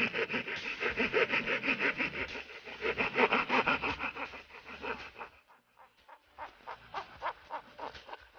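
Mini hand saw cutting with quick back-and-forth strokes, several a second, strong for about five seconds, then lighter, more spaced strokes after a brief lull.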